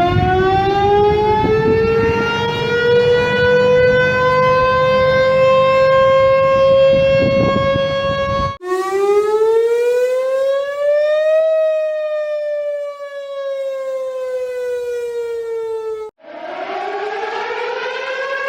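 Outdoor warning sirens in three back-to-back cuts. The first winds up slowly in pitch over low background rumble. The second, cut in about eight and a half seconds in, rises and then winds down, falling in pitch. A third starts winding up near the end.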